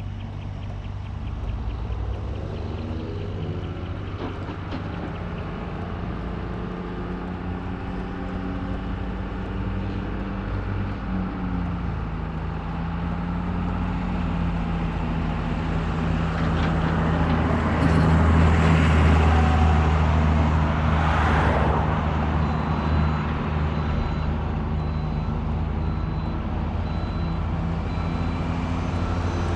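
Truck engine running while driving, with road noise. The engine's pitch steps down about eleven seconds in, and it grows louder, with more rushing noise, for a few seconds about two-thirds of the way through.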